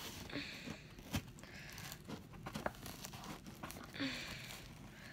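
Padded mailer being pulled and crinkled by hand in attempts to tear it open, in short bouts of rustling with scattered faint clicks and taps; it does not give way.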